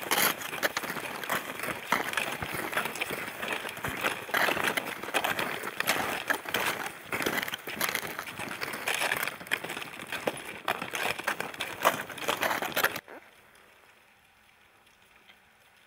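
Several people walking on snowshoes over packed snow: a dense, irregular crunching of steps, which drops away suddenly near the end to a faint background hush.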